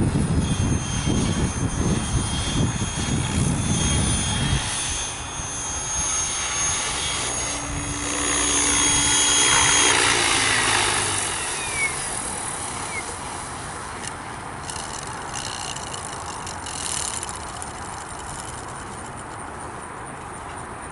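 Mikado Logo 600 SE electric RC helicopter flying, its rotor blades whooshing over a steady high motor whine, loudest as it comes in low and close. After a brief falling whine it lands and the rotor spins down, the sound fading steadily over the last several seconds.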